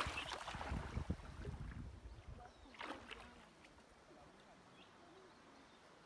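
Low rumbling wind buffeting the phone's microphone for the first two seconds or so, with a brief rustle about three seconds in, then faint outdoor quiet.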